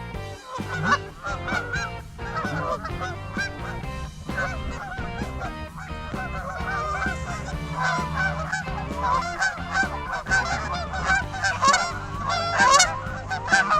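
A flock of geese honking, many overlapping calls. The calling grows denser and louder in the second half.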